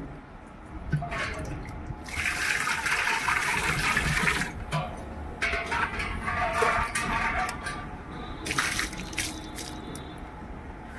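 Water sloshing in a small clay pot and pouring out onto a concrete floor as the pot is rinsed to wash out the ash left in a new pot, in stretches starting about two seconds in, again around five and a half seconds, and briefly near eight and a half seconds.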